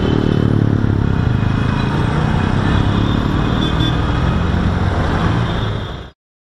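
Motorcycle engine running at low speed in traffic, with road noise, picked up by a camera mounted on the bike. The sound cuts off abruptly near the end.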